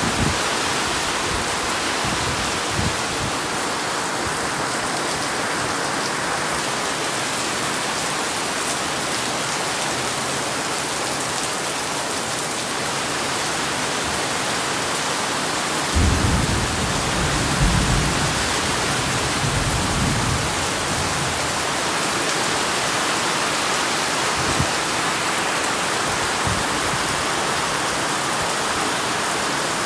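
Heavy rain falling steadily during a typhoon. A low rumble swells in just over halfway through and lasts a few seconds.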